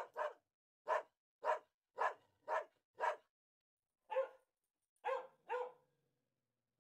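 Pomeranian barking, about ten short yappy barks, mostly half a second apart, with a couple of longer gaps in the second half.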